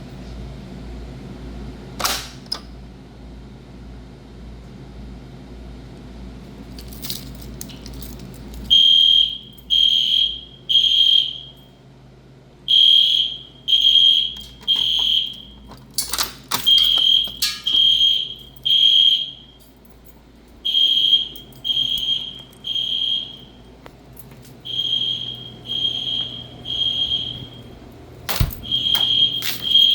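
Fire alarm being tested, sounding high-pitched beeps in groups of three with a pause after each group, repeating about every four seconds: the temporal-three evacuation pattern. It starts about nine seconds in, after a low hum and a few clicks, and a couple of sharp clicks fall among the beeps.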